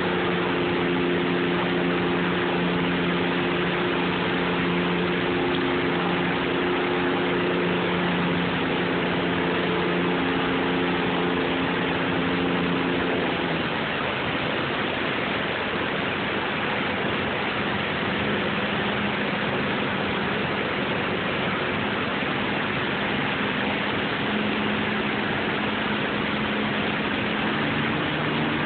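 Water rushing steadily over a low river dam, with a heavy engine running underneath, from the crane barge being moved. The engine note drops about halfway through and picks up again near the end.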